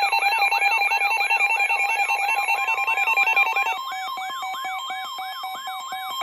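Electronic weather-alert tones at the start of a NOAA Weather Radio flood warning: a fast warbling siren sweep repeating about three times a second over rapid pulsed beeps, joined about four seconds in by a steady single-pitch alert tone.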